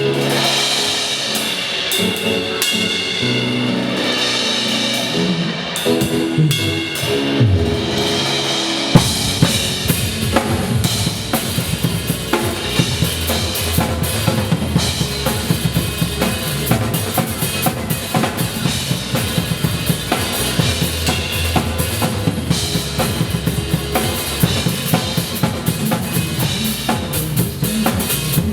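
Pop song with a drum kit: a lighter intro, then bass drum, snare and bass come in about nine seconds in and carry a steady beat.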